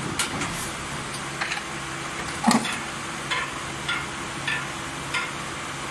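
Plastic injection moulding machine running through its cycle as the fruit-crate mould opens. A steady machine hum runs under short hissing clicks about every two-thirds of a second, with a louder clunk about two and a half seconds in.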